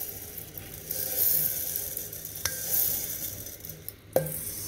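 Dried rice grains pouring into a steel mixer jar: a steady hissing patter of grain on metal, then two sharp taps, the louder one about four seconds in.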